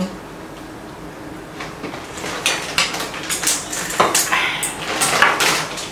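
Tableware clinking and clattering during a meal: chopsticks and utensils knocking and scraping against bowls and a pot. It is quiet for the first two seconds, then becomes a busy run of quick clicks and clatter.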